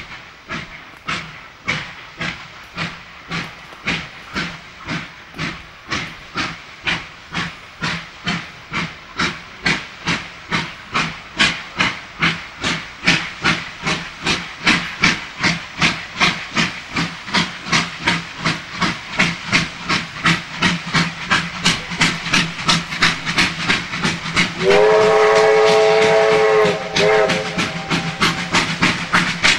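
Two Victorian Railways R class 4-6-4 Hudson steam locomotives working double-headed, their exhaust beats chuffing about twice a second and growing louder as the train approaches. Near the end a steam whistle sounds for about two seconds, then gives a short second toot.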